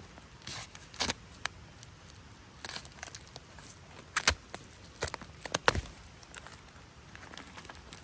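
Plastic food pouch crinkling and crackling as it is slit open with a knife and handled, in irregular short crackles, the two loudest a little past the middle.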